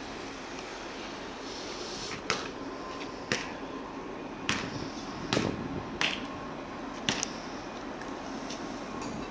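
A basketball bouncing and hitting hard surfaces on a netted outdoor court: about seven sharp thuds at irregular intervals roughly a second apart, over a steady background hiss.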